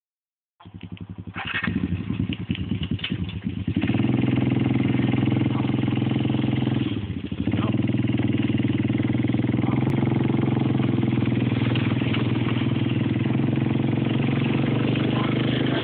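ATV engine running under throttle: it comes up about half a second in, climbs to a steady high-revving drone, briefly drops around seven seconds in, then holds steady again, typical of an ATV working to climb out of a ditch.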